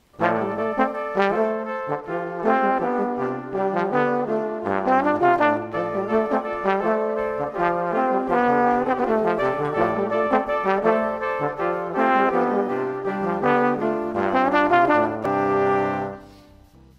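Brass-led instrumental music: the segment's intro jingle. It stops about a second before the end.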